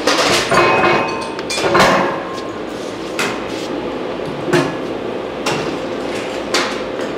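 Sharp metal-on-steel knocks on a heavy steel plate assembly, about eight irregular strikes, the loudest about two seconds in, over a steady shop hum.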